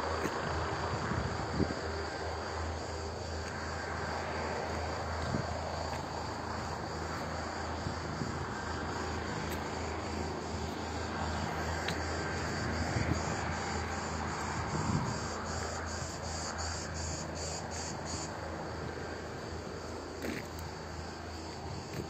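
Cicadas droning steadily, with a fast pulsing stretch about three-quarters of the way through, over a low steady hum.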